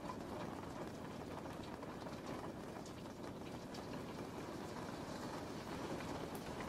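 Steady rain falling: an even hiss with a low rumble underneath and scattered light ticks of drops.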